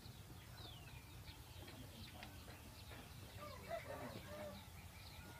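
Faint chirping of small birds throughout, with a short run of chicken clucking about two thirds of the way through, over a steady low hum.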